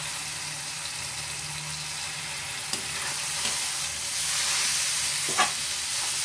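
Chopped vegetables sizzling in a metal kadhai as soy sauce is added, then stirred with a perforated metal spatula. The sizzle grows louder about four seconds in when the stirring starts, with a sharp knock of the spatula against the pan shortly before the end.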